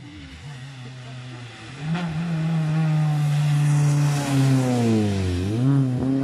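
Honda Civic hatchback rally car approaching and passing at speed on a wet road, its engine held at high revs and growing loud about two seconds in, with tyre hiss on the wet surface. Near the end the engine note drops as the driver lifts, then climbs again.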